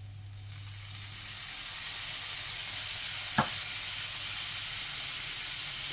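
Cider vinegar sizzling as it hits a hot frying pan of shallots and cracked black pepper. The hiss swells over the first couple of seconds and then holds steady, with one short click about three and a half seconds in.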